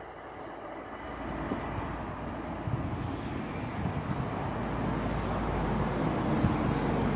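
Rumble of an approaching vehicle, growing steadily louder.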